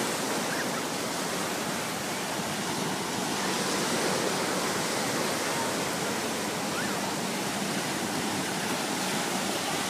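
Small waves breaking and washing up a sandy beach in a steady hiss, with faint voices of people in the background.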